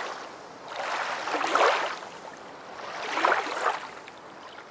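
Small sea waves washing in and out over a pebble shoreline right at the microphone, swelling twice about a second and a half apart.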